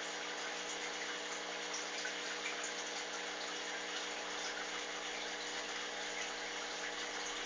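Steady, even hiss with a faint low hum beneath it, with no sneeze or other distinct sound.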